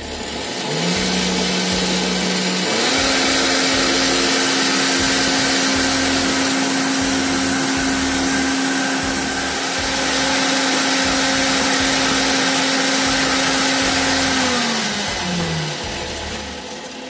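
KitchenAid K400 blender's 1200-watt motor blending dried chilies and a little water into hot sauce. It starts on speed 1 about a second in and steps up to speed 5 about three seconds in, a higher steady whine. Near the end it winds down through a lower pitch and stops.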